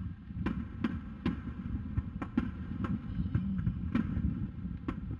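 Distant aerial fireworks shells bursting: a string of sharp bangs at irregular intervals, roughly every half second to a second, over a steady low rumble.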